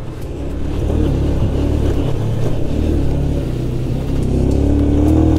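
SPARK SP200R-28 motorcycle's 198 cc four-stroke engine running under way on a dirt track, the revs picking up and the sound growing louder about four seconds in.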